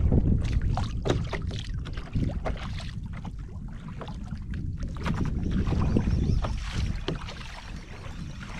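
Wind buffeting the microphone as a low rumble, with water slapping against a kayak's hull and scattered sharp knocks and clicks on the boat.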